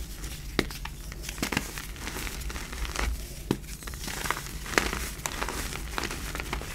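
Hands squeezing and crumbling lumps of black reformed gym chalk, giving irregular crunching and crackling with several sharper snaps as the lumps break into crumbs.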